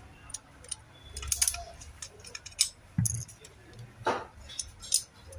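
Scattered light metallic clicks and taps of a screwdriver and small screws against an aluminium heat sink as it is screwed down over a projector's DMD chip, with duller knocks about three and four seconds in.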